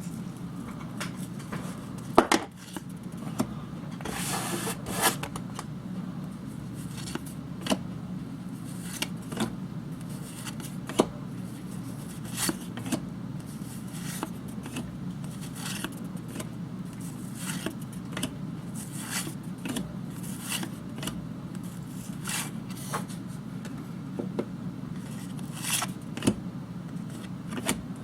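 A pack of 1990 Score football cards being handled: the wrapper crinkles and tears, and the cardboard cards are flipped through one after another, each a light snap or click.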